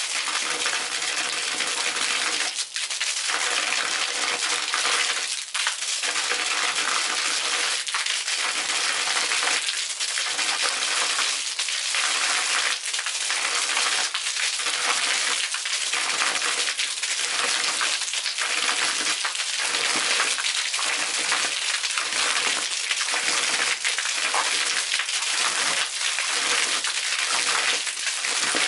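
Arching fountain jet's water stream splattering onto a concrete deck, a steady hissing splash that pulses about once a second in the latter half as the stream breaks into segments.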